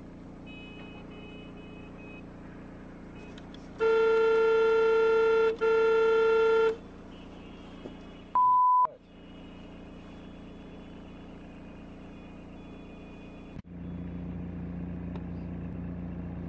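A car horn sounding in two long blasts, the first about two seconds and the second about one, over the steady hum of engine and road noise inside a car. A few seconds later a short, pure electronic beep, and near the end louder street traffic noise.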